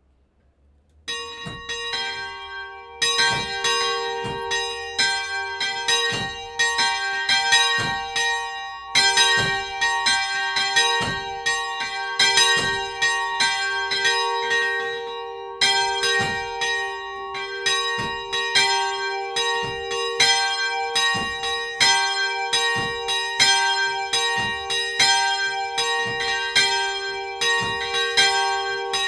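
Two swinging bronze Paccard church bells, cast in 1994 and tuned to G4 and B-flat4, ringing together up close in the belfry. The higher bell starts about a second in and the lower one joins right after; then their clapper strikes overlap in a steady peal.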